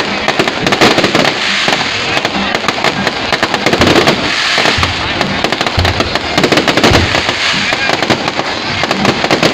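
Fireworks display: a dense, continuous crackling and popping from ground fountains and aerial bursts, with a few deeper bangs about halfway through.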